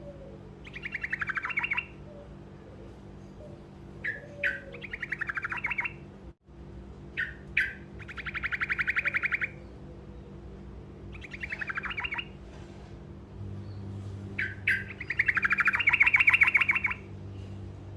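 Truco songbird singing short rolling trills: five fast rattling trills of one to two seconds each, with single sharp chirps between them, over a low steady hum.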